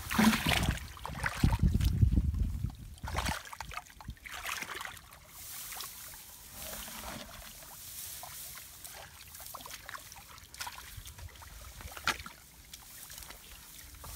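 Hands working in shallow muddy water among rice-field grass: rustling stalks and small splashes and ticks. A low rumble on the microphone covers the first three seconds.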